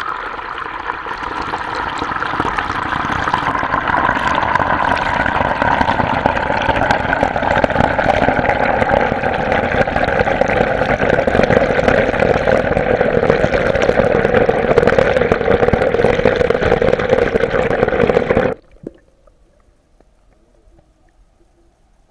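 Water pouring steadily and loudly, building up over the first few seconds, then stopping abruptly near the end.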